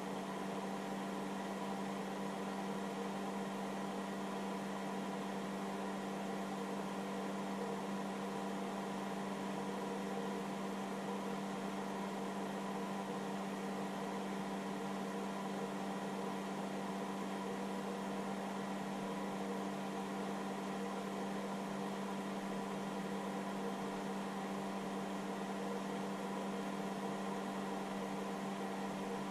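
Cooling fan of a hobby battery charger running steadily with a constant hum while the charger works at about 5 A.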